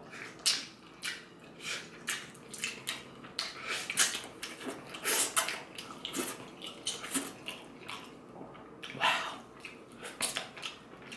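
Close-up wet mouth sounds of someone eating chicken tail with his hands: chewing, lip smacking and sucking meat off the bone, heard as a string of short, irregular wet smacks and clicks.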